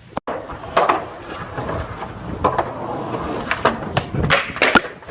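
A run of sharp knocks and clatters over a rough, noisy rumble as a person crashes hard, with the sharpest knock near the end.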